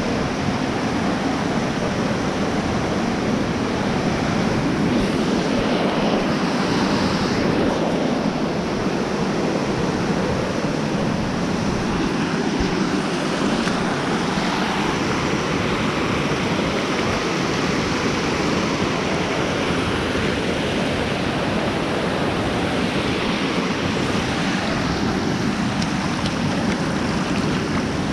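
Waterfall: water falling and rushing in a steady, loud, unbroken roar.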